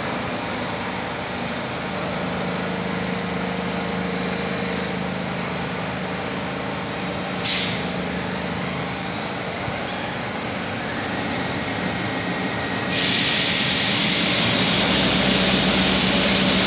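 R62A subway train running away down the tunnel, a steady rumble echoing through the underground station. A brief hiss comes about seven and a half seconds in. The noise grows louder and hissier about 13 seconds in.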